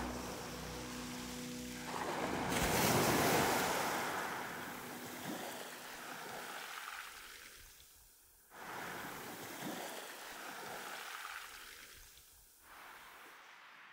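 Small waves breaking and washing up a sand-and-pebble beach, the surf swelling and ebbing. The sound jumps abruptly twice, about eight and twelve seconds in.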